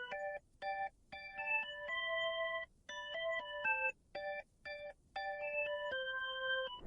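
Background music: a light electric-piano-style melody of bright held chords, broken by short pauses between phrases.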